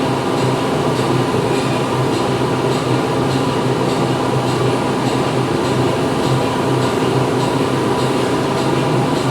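Factory machinery running steadily: a continuous dense mechanical hum over a low drone, with a faint regular ticking a few times a second.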